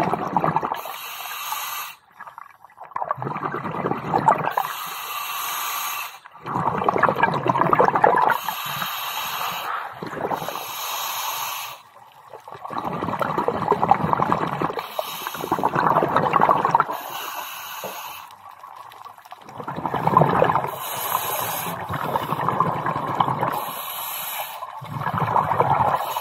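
Scuba regulator breathing heard underwater: hissing inhalations alternating with loud bubbling exhalations, in a slow, even cycle of about one breath every five to six seconds.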